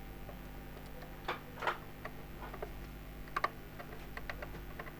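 Small irregular clicks and ticks of a hand screwdriver driving screws into the plastic back cover of a Paytm Soundbox, with the plastic case being handled. A few louder clicks come about a second and a half in, and a quick pair a little past halfway.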